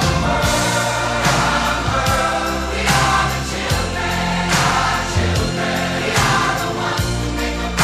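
Pop song from a 1985 radio broadcast: a group of voices sings in chorus over a steady beat.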